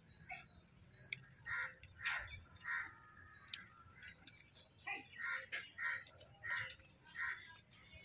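Crows cawing in a string of short calls, one run about a second and a half in and another about five seconds in, with small clicks of eating by hand in between.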